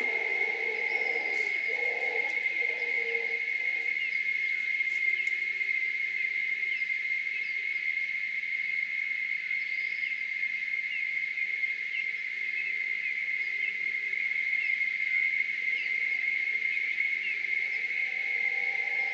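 Steady high-pitched drone of a tropical insect chorus at dusk, with scattered short rising chirps over it. Distant mantled howler monkeys roar low in the first few seconds and again near the end.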